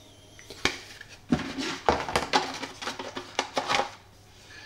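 Board game components being handled by hand: a sharp click a little after the start, then a run of light clicks, taps and rustles as a folded cardboard player screen and cards are handled over a plastic storage tray.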